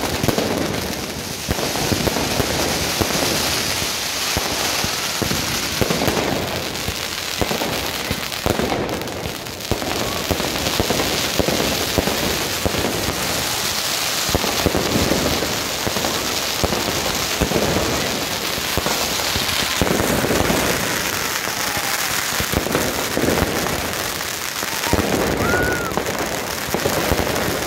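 A huge barrage of firecrackers and fireworks going off together: dense, non-stop crackling and popping of rapid bangs, with spark fountains and aerial shells firing at once.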